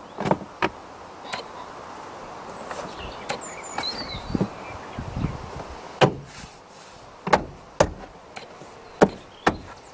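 Plastic A-pillar trim of a 2004 Honda Civic Type-R being pressed back into place by hand, giving a scattering of sharp clicks and knocks as its clips snap home, most of them in the second half.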